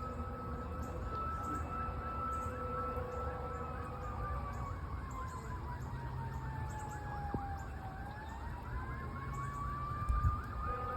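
Fire engine sirens: a wail siren holds a steady tone, slides down in pitch for about four seconds and climbs back up, while a second siren yelps rapidly over it. A low rumble runs underneath, and there is a short low thump near the end.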